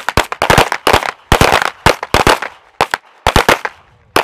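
Many pistol shots from several shooters on a firing line, fired in quick irregular pairs and clusters as controlled pairs of two shots each. The shots are dense for the first two and a half seconds, then come in a few scattered groups, with one last shot near the end.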